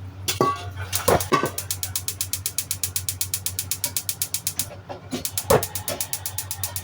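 Gas stove igniter clicking rapidly and evenly, about a dozen clicks a second for nearly four seconds, then stopping, over a steady low hum. A few pan or utensil knocks come before and after.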